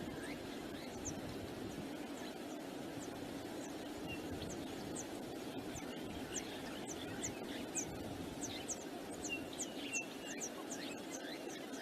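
Steady wind rushing over the microphone, with small birds calling in many short, high, falling chirps that come thicker in the second half.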